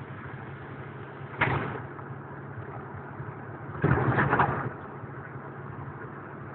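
Semi-truck running, heard inside the cab as a steady low drone. A sudden bang comes about a second and a half in, and a louder burst of several knocks lasting almost a second comes about four seconds in.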